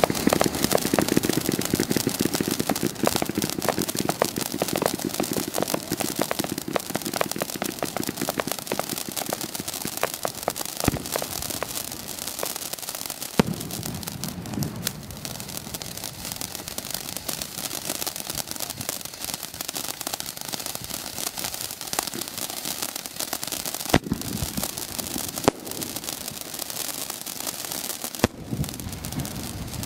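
Dominator "Christmas in July" (DM212F5) firework fountain spraying sparks: a continuous hiss dense with crackling, with a handful of sharper pops scattered through it. It is loudest in the first few seconds.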